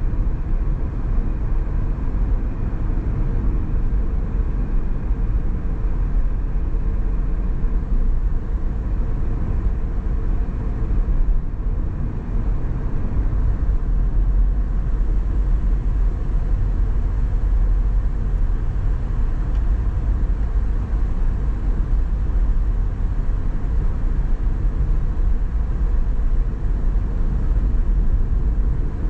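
Steady road noise of a car driving: a constant low rumble of tyres and engine.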